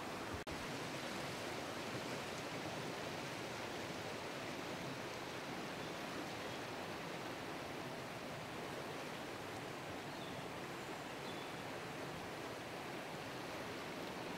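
River water flowing over a trout stream's riffles, a steady rushing hiss, with a brief dropout about half a second in.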